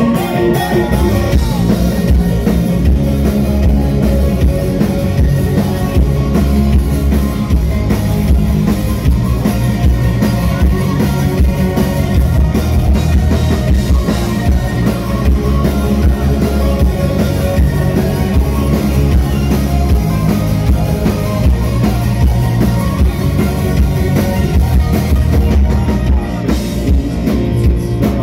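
Live rock band playing loud: drum kit, electric guitars and bass guitar, heavy in the low end.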